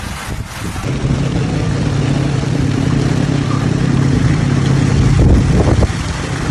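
Motorcycle engine running steadily as it ploughs through deep floodwater, with the rush and splash of churned water over it, starting about a second in.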